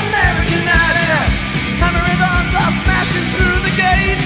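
Punk rock song played by a full band, with drums keeping a steady beat under pitched melodic lines.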